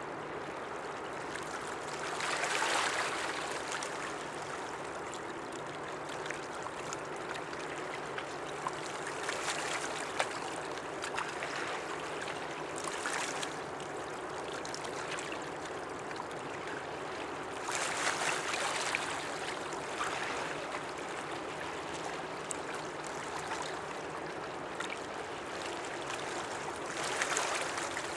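River water washing and lapping against the shore as a steady hiss, swelling into louder splashing surges a few times. A faint steady low hum sits underneath.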